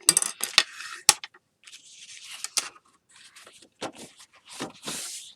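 A cardstock file folder being creased along a score line and burnished flat with a bone folder. Sharp paper crackles and taps come in the first second, followed by scraping, rubbing strokes of the bone folder over the paper.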